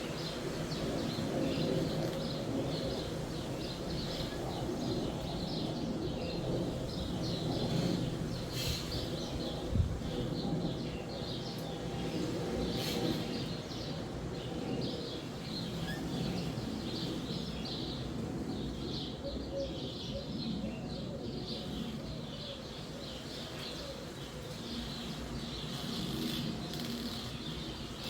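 Wind rushing through a forest with many small birds chirping continually. A single sharp knock about ten seconds in.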